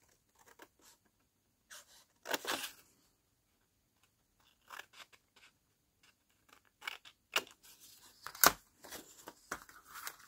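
Scissors cutting through a sheet of old book paper in a series of short, crisp snips with pauses between cuts, with a sharper snap about eight seconds in.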